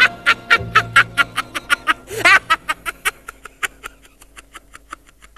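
A cartoon villain's cackling laugh: a fast, even run of short 'ha' bursts, about four a second, that grow fainter and die away near the end, over soft background music.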